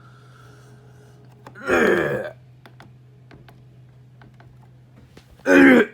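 Two short vocal sounds from a person, each dropping in pitch, about two seconds in and near the end, over a steady electrical hum. A steady tone fades out about a second in.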